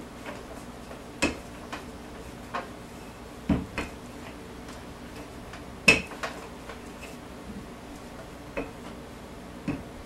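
Wooden rolling pin working pie crust thin on a floured wooden board: scattered light knocks and clicks as the pin is pushed and shifted, the sharpest about six seconds in.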